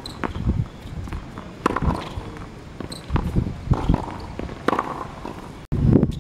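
Tennis ball knocking off rackets and bouncing on a hard court during a rally, sharp hits about every second or second and a half. Near the end the sound briefly drops out, then a louder rumbling background comes in.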